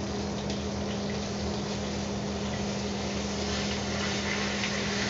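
Chicken breast sizzling in a frying pan over the steady hum of a range hood fan, with a few light taps of a utensil in the pan near the end.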